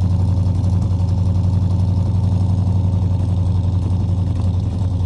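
C20 pickup engine idling with a misfire, running rough and shaking; the owner suspects the miss is on one cylinder bank.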